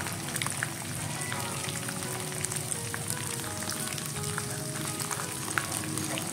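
Grated galangal and spice paste frying in hot oil in a pan, crackling and sizzling steadily as a wooden spatula stirs it.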